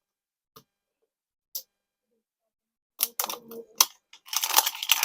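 Toy packaging and a plastic capsule being handled and worked open. A couple of faint clicks come first, then from about three seconds in a quick run of clicks and a steady crackling rustle of plastic.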